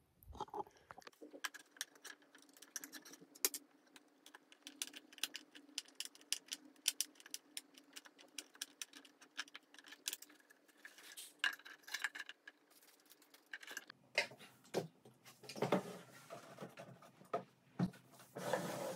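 Scattered light clicks, taps and clinks of flat-pack furniture parts being handled and fitted, such as plastic hinge brackets and hardware on a particleboard panel. From about two thirds of the way in, there are heavier knocks and rustling as the large panels are handled.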